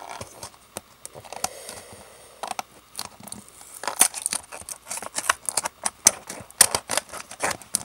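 Fingers picking and prying at a small cardboard retail box with a clear plastic window: a run of sharp crinkles and clicks, sparse at first and coming thick and fast from about halfway through.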